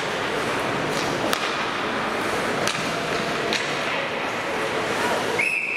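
Ice hockey in an indoor rink: steady noise of skates on the ice, a few sharp clacks of sticks and puck, and voices. Near the end a referee's whistle blows one long, steady note to stop play.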